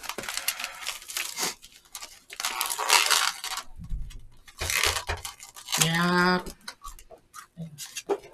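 Plastic wrap being torn and peeled off a small takeout container, in several crinkling, tearing bursts. A brief hummed voice sound follows about six seconds in.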